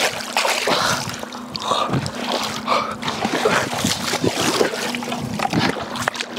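Shallow river water splashing and sloshing in quick, irregular strokes as hands grope and grab for fish in the water.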